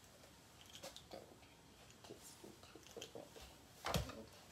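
Faint small clicks and scrapes of a fork working bait onto a wooden snap mouse trap while it is being set, with one sharper, louder click about four seconds in.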